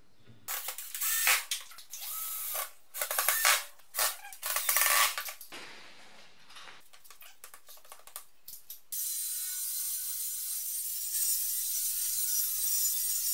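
DeWalt cordless driver driving screws in a run of short bursts. About nine seconds in, a power saw starts and runs steadily, cutting a board for the shelves.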